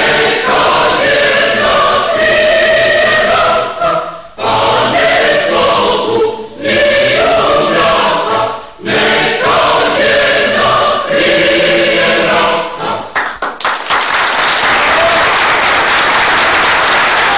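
A group of voices sings together in chorus, phrase by phrase with short breaks. About fourteen seconds in, the singing stops and applause breaks out.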